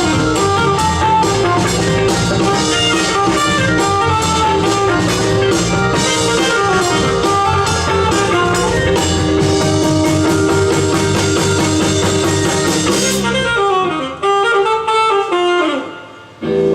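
Live jazz-fusion band playing, with saxophone and electric guitar over drums and bass. About thirteen seconds in, the drums and bass drop out, leaving held and sliding notes and a short dip before the band comes back.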